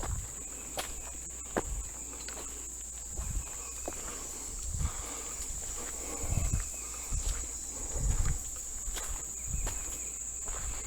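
Footsteps on a woodland trail, irregular low thuds with a few sharp snaps, over a steady high-pitched insect drone.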